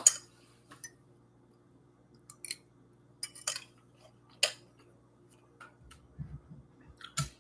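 A metal fork clinking and tapping on a ceramic plate while eating scrambled eggs: a dozen or so scattered light clicks, the sharpest right at the start, over a faint steady hum.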